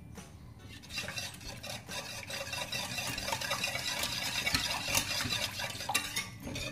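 Wire whisk stirring a thick onion sauce in a metal saucepan, a steady scraping rattle against the pan that starts about a second in. Flour is being whisked in as a thickener, to keep it from forming lumps.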